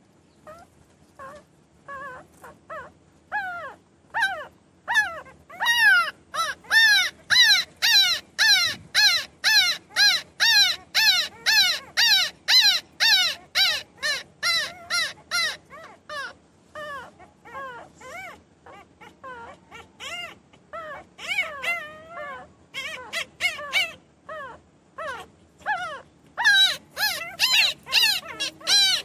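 Newborn puppies crying and whining: a rapid run of short, high-pitched squeals, each rising then falling in pitch, about two a second, starting faint and growing loud within a few seconds, easing off in the middle and loud again near the end.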